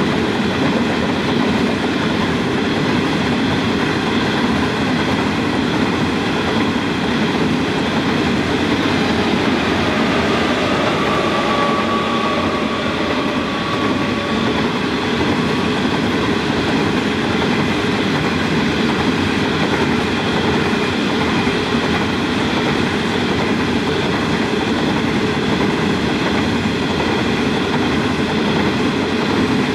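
Empty coal hopper wagons rolling past with a steady rumble and rattle of wheels on rail. About midway, a mid-train pair of EMD diesel-electric locomotives goes by in dynamic braking on a downgrade, with a faint steady whine for several seconds.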